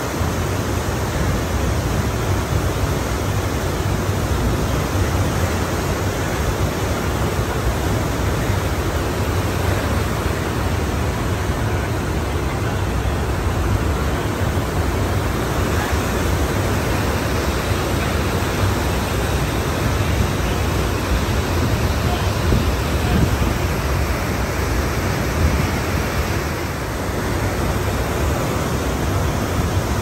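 Ocean surf washing steadily: a dense, even rush of water with a strong low rumble and no distinct breaks between waves.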